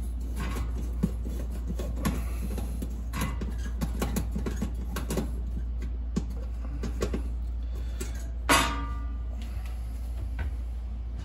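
Screwdriver unscrewing the burner tube's mounting screw in a gas oven: small metallic clicks and scrapes of the tool against the screw and sheet-metal bracket. About three-quarters of the way through comes one louder metallic clank with a short ring. A steady low hum runs underneath.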